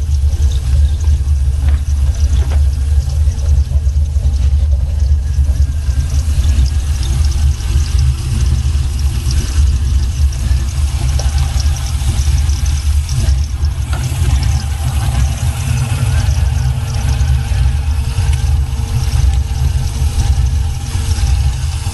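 6.0-litre V8 engine idling with a steady low rumble.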